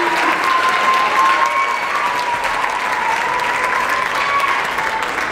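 Audience applause: dense, steady clapping from a full hall, with a few voices calling out over it.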